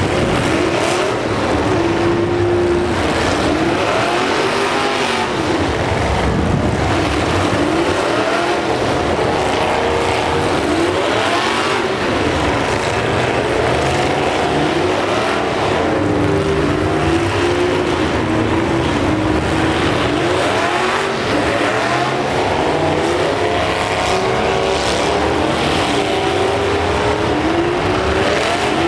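Several demolition derby trucks' engines revving hard and falling back, over and over, with pitches sweeping up and down as they accelerate in the mud.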